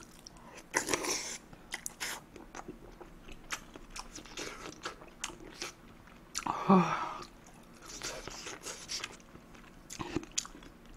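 Close-miked chewing of a mouthful of kimchi fried rice, with many small wet mouth clicks and smacks. There is a brief vocal sound about seven seconds in and a knock near the end.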